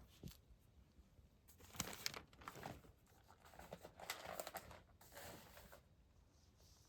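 Faint rustling and crinkling in a few short bursts as a calico cat moves about over its bedding.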